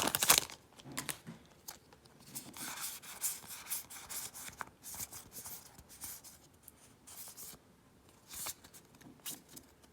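Hands handling a just-opened Magic: The Gathering booster pack: the foil wrapper rustles and the cards scrape and slide against each other in short, irregular bursts.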